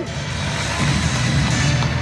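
Background music playing.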